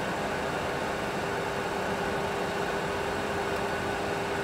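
Steady cockpit drone of a Boeing 737 Classic full flight simulator: an even rushing noise with a steady hum running through it.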